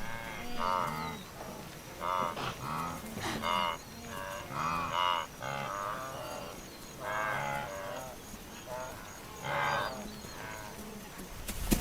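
Wildebeest herd calling: many short nasal grunts and bleats, one after another and overlapping. A sharp click comes near the end.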